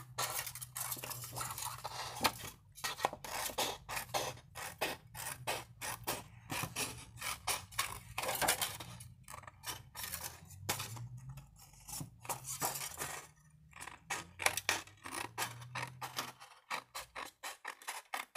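Scissors snipping through a thin sheet of shrink plastic, a long irregular run of short, sharp cuts.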